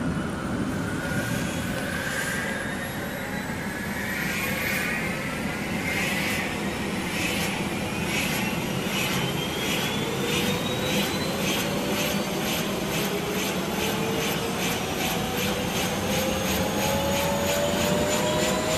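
Turbine helicopter spooling up for takeoff: a whine that climbs steadily in pitch, joined about six seconds in by an even beat of rotor blades that gradually gets faster.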